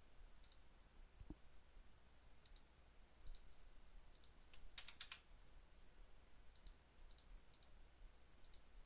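Faint, scattered clicks of a computer mouse and keyboard, with a brief cluster of a few clicks about five seconds in, over near silence.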